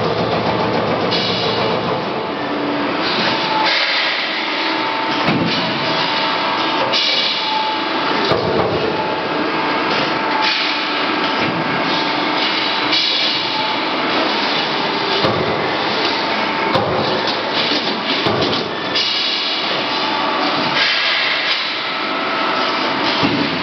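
CNC turret punch press rapidly punching holes and slots in sheet steel, a dense run of metallic strokes.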